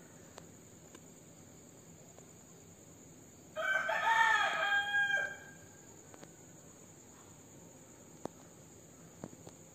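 A rooster crows once, a cock-a-doodle-doo of nearly two seconds about three and a half seconds in, over a steady high trill of crickets.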